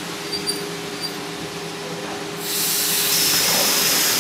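A train at the station lets off compressed air with a loud hiss. The hiss starts about halfway through over a steady low hum and cuts off sharply at the very end.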